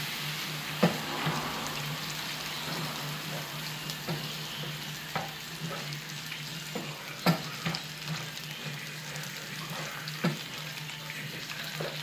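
Oil sizzling steadily in frying pans where floured chicken drumsticks and chopped vegetables are frying, while a spatula stirs the vegetables and knocks against the pan several times.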